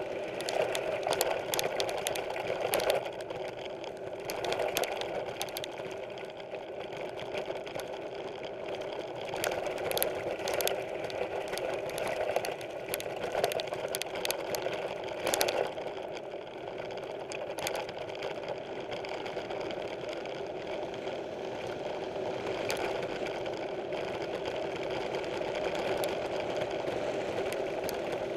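Mountain bike rolling along a dirt trail: a steady buzz from the moving bike, broken by frequent knocks and rattles as it goes over bumps, busiest in the first half.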